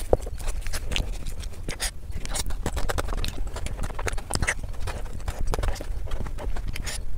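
Close-miked eating sounds: a person chewing a mouthful of chocolate cake with rapid wet smacks and clicks of the mouth, and a metal spoon scooping chocolate sauce from a bowl.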